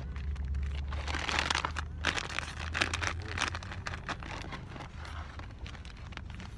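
Crinkling and rustling of a plastic chip bag and a paper burger wrapper being handled, in quick irregular rustles that thin out after about three seconds, over the low steady rumble of a car cabin.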